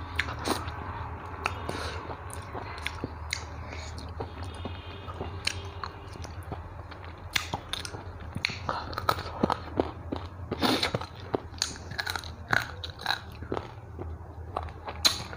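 Close-miked chewing and crunching of fish bones, irregular sharp clicks and smacks of the mouth, over a low steady hum.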